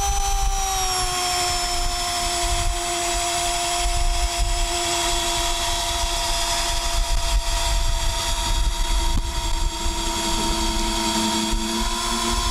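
Handheld electric drill boring into a wooden fence post: a steady motor whine that sags slightly in pitch in the first second as the bit bites in, then holds steady.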